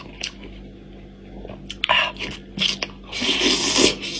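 Close-miked eating sounds: chewing and biting into braised goat-head meat, with a few sharp crunchy bites about two seconds in. A rasping, gnawing stretch follows near the end as meat is torn from the bone with the teeth.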